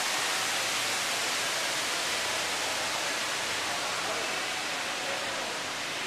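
Water falling in many thin streams down a tall man-made water wall, a steady, even hiss.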